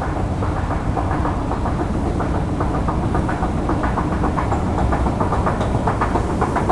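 Thyssen escalator running: a steady low rumble with a rapid rattle of clacks that grows busier toward the end.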